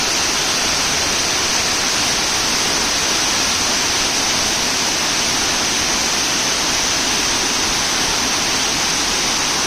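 Waterfall cascading over rock into a pool: a steady, unbroken rush of falling water.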